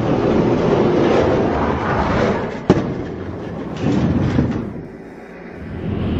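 Die-cast toy monster trucks rolling down a plastic track with a rough, rumbling clatter, and a single sharp clack about two and a half seconds in.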